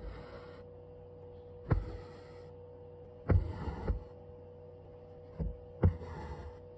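Embroidery needle popping through thin canvas several times at uneven intervals, each pop followed by a short hiss of cotton floss being drawn through the fabric. A faint steady hum runs underneath.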